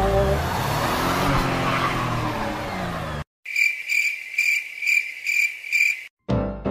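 Electric ride-on toy car's wheels spinning in mud under background music, which cuts off suddenly about three seconds in. Then a cricket-chirp sound effect plays over silence, six short high chirps about two a second, the comic 'nothing happening' cue for a car that is stuck.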